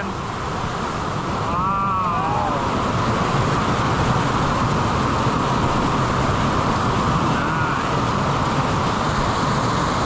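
Waterfall: water falling onto a pool with a steady, even rush close by. A brief voice-like call shows about two seconds in.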